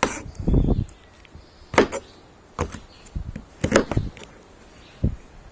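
Four separate sharp knocks and clicks a second or so apart, with a dull low thump just before them: kitchen utensils and containers being handled while cut peaches are readied for the pan.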